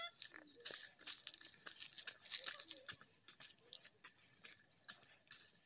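Steady high-pitched chorus of insects chirring in the trees and grass, with faint scattered ticks over it.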